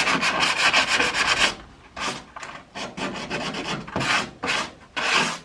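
Coarse sandpaper rasping over the painted steel of a truck cab: a second and a half of continuous scrubbing, then a run of separate strokes that stops just before the end.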